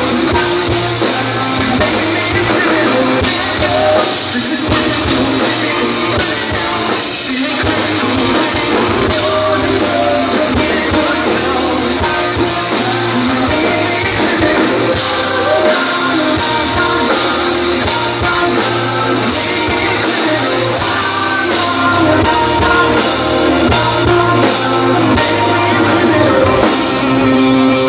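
Live rock band playing loudly through a PA: electric guitars, drum kit and a lead singer, heard from within the crowd.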